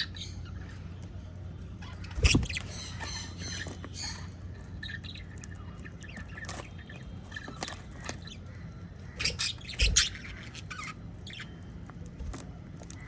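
Small pet parrots such as lovebirds and budgies chirping and squawking in short scattered calls, with louder sharp bursts about two seconds in and again near ten seconds, over a steady low hum.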